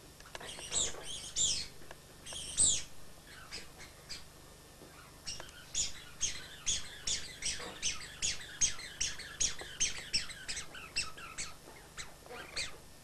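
A dachshund yelping and whining in high-pitched cries: a few at first, then from about five seconds in a rapid run of about three a second. This is the sound of the dog's anxiety at being in a car.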